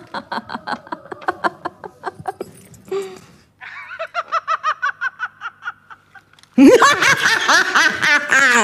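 A woman laughing in two runs of short, rapid bursts, the second higher-pitched. About six and a half seconds in, a much louder voice cuts in and carries on to the end.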